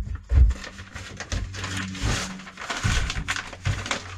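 Handling noise as a rusty steel boat knee is worked into a plastic bag over a plastic tub: a couple of dull knocks near the start, then plastic rustling, over a steady low hum.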